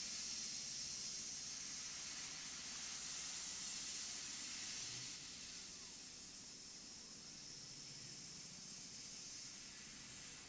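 Tormach 770M CNC mill taking a light finishing pass with a large chamfer mill on copper workpieces, under a steady hiss from the nozzle blowing at the cutter. A faint high tone joins about halfway through and fades shortly before the end.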